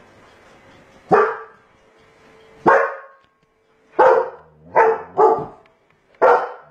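German Shepherd-type dog barking six times at irregular intervals, two of the barks in quick succession a little before the five-second mark. These are alarm barks at a stuffed toy tiger that it takes for a threat.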